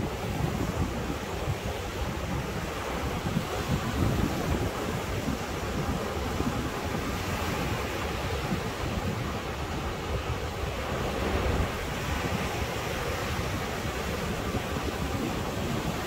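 Ocean waves surging steadily, with a breezy wind blowing across the microphone.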